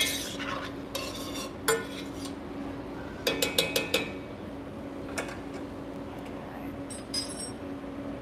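Metal spoon stirring and scraping vegetables in a pot on a stovetop, with sharp clinks of metal against the pot. A quick run of ringing clinks comes about three and a half seconds in, over a steady low hum.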